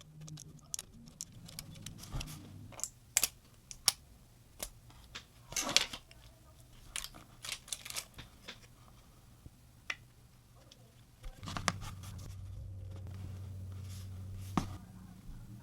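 Small clicks, taps and scrapes of hand tools and parts being handled during a phone repair, with a few sharper snaps and a longer scratch about six seconds in. A low hum comes in past the middle and stops a little before the end.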